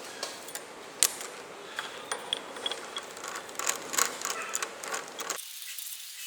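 Irregular light metallic clicks and taps, with one sharp knock about a second in, from metal parts and hand tools being handled.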